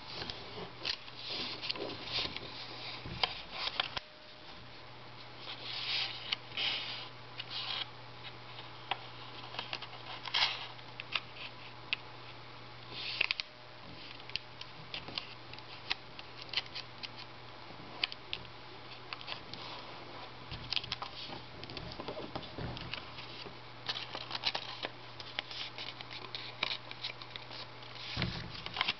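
A sheet of origami paper rustling and crinkling as it is folded and creased by hand, in irregular crisp crackles, over a faint steady low hum.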